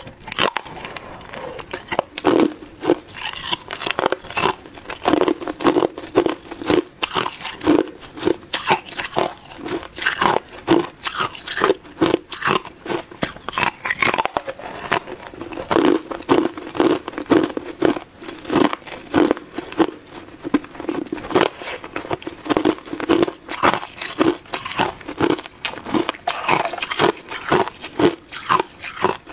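Hard clear ice being bitten and chewed close to a clip-on microphone: a dense, irregular run of sharp cracks and crunches that continues throughout.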